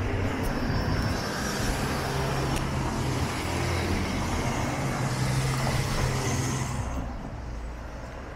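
City road traffic: a motor vehicle's engine hum and tyre noise close by, fading away about seven seconds in as the vehicle moves off.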